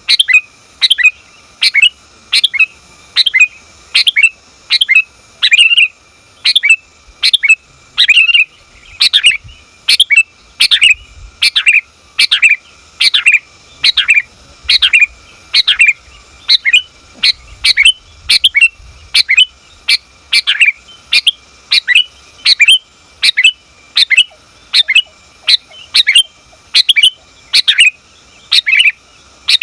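Female sooty-headed bulbul (kutilang) calling to draw a male: short, sharp chirps repeated steadily about twice a second, each a quick falling note.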